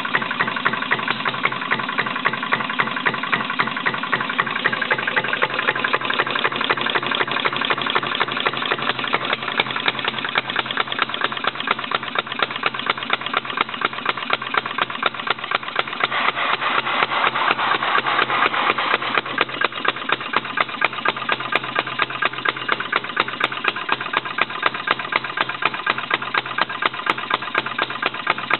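RMC Type D non-compression gasoline engine running steadily, firing in an even rhythm of sharp beats with a close-spaced mechanical clatter between them.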